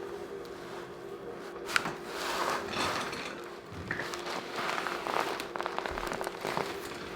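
Handling and rustling on a chiropractic table during a neck adjustment, with one sharp click a little under two seconds in and a run of small crackles later on, over a steady low hum.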